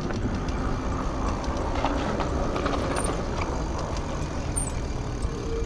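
Steady rumbling noise of a bicycle being ridden along a rough concrete path, with wind on the microphone.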